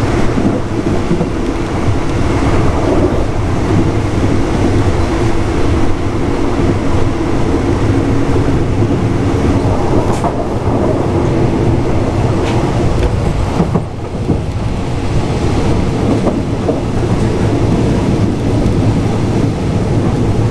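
Steady rumble and rattle of a moving passenger train, heard from inside a third-class coach, with a low running hum under it.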